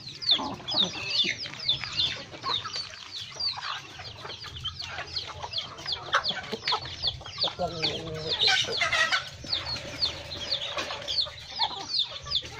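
Chickens feeding at a trough: a continuous run of high, falling peeps from young chickens, several a second, mixed with lower clucking from hens, busiest a little past the middle.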